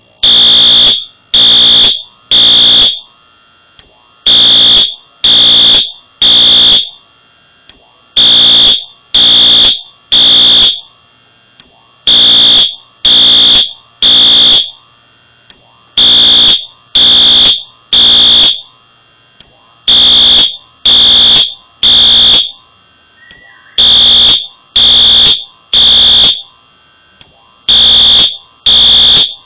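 Wheelock AS fire alarm horn sounding loudly in the temporal-three evacuation pattern: three blasts, a pause, then three again, about every four seconds. A faint tick falls in each pause.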